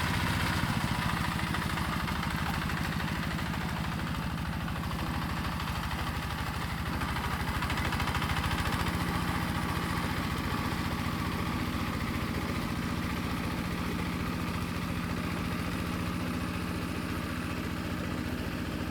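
Tractor engine running steadily with an even, rapid firing beat, its note shifting slightly a couple of times.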